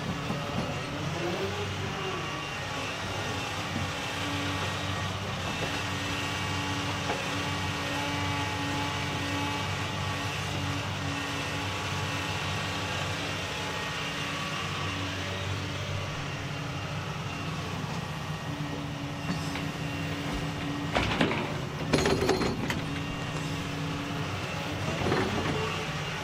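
Doosan DX235LCR short-tail-swing excavator's diesel engine running steadily under load as the machine swings and works its boom and arm, with fainter higher steady tones above the engine. Near the end come a few sharp knocks, the loudest about four seconds before the end.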